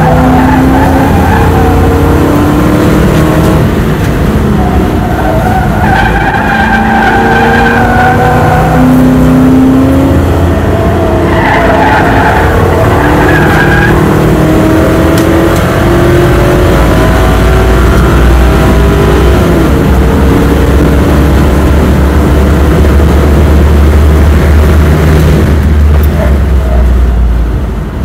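Lincoln Mark VIII's V8 heard from inside the cabin at racing pace, its pitch rising and falling as the driver accelerates and lifts. The tyres squeal through the corners.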